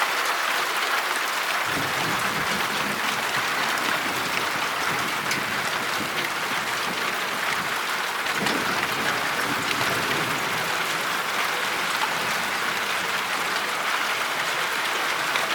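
Heavy rain with hail: a steady, dense hiss of downpour with scattered sharp ticks of hailstones striking.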